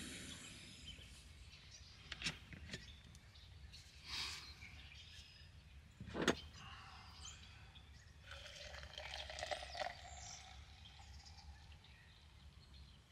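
Jetboil camp stove being handled: the burner's hiss fades out at the start, then a few clicks and knocks of the metal cup and mug, the sharpest about six seconds in. In the latter part, boiled water is poured from the Jetboil cup into a mug. Birds chirp faintly.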